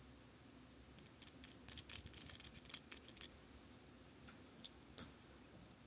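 Faint quick clicks and light scratching from eyeliner and makeup being handled close to the microphone: a run of small ticks from about a second in to past three seconds, then a few more near five seconds.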